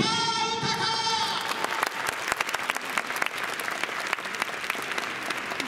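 Crowd applauding, with dense clapping taking over about two seconds in after a voice speaking at the start.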